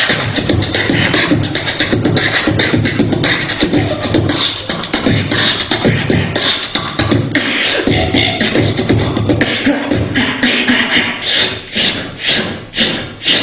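Beatboxing: a person making rapid vocal percussion with the mouth, a dense run of sharp hits several a second over a low sung or hummed tone, the hits spacing out near the end.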